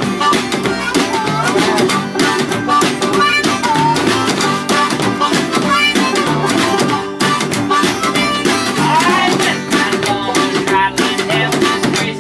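Acoustic string band playing an instrumental passage: a harmonica leads with bending notes over banjo, upright bass and guitar, with a steady beat.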